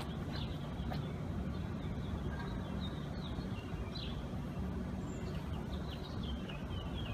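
Birds chirping in short, quick notes over a steady low rumble.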